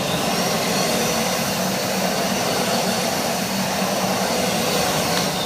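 Kärcher MV2 wet-and-dry vacuum cleaner running steadily at full power with its floor head fitted, a loud, even whine over a low hum.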